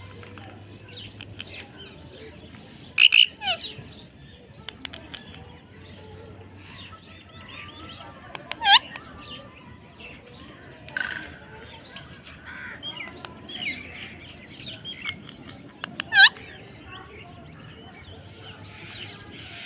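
Parrot chirping and squeaking in short calls throughout, with a few loud, sharp shrieks: a pair about three seconds in, one near the middle, and one near the end.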